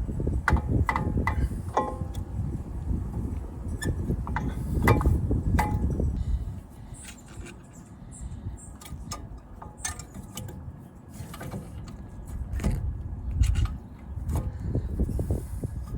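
Scattered metallic clicks and clinks from brake caliper parts and hand tools being handled during a front brake pad change. Low rumbling handling noise runs under them for the first six seconds or so, then drops away.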